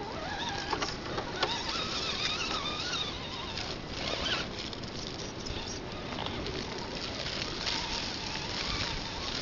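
Electric drive motor and gears of an Axial SCX10 RC rock crawler whining, the pitch rising and falling with the throttle, with scattered clicks and crunches of the tyres on dirt and small rocks.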